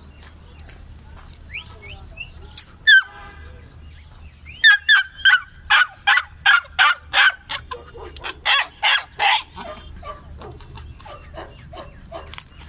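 Young Alabai (Central Asian Shepherd) dog barking: one call about three seconds in, then a fast run of sharp barks, about three a second, until about nine seconds in, then quieter barks near the end.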